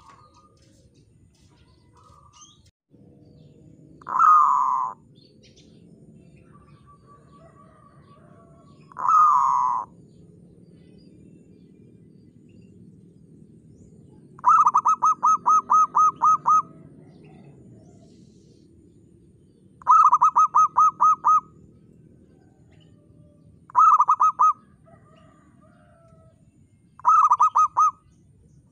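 Zebra dove cooing: two single drawn-out coos about four and nine seconds in, then four bursts of rapid staccato coo notes at about five notes a second, the longest lasting about two seconds.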